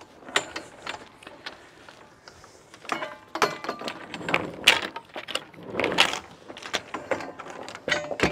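Steel anchor chain and a Delta anchor clanking and rattling as they are pulled and handled by hand at the bow, in irregular knocks, a few ringing briefly.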